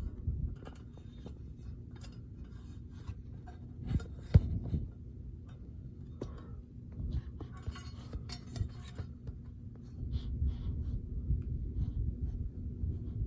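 Metal HVAC vent grille being handled and bent: scattered clicks, metallic clinks and rattles, with one sharp knock about four seconds in, over a steady low hum.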